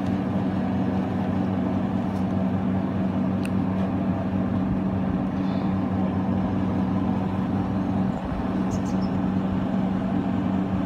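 A steady low motor hum, like an engine running nearby, with a few faint clicks.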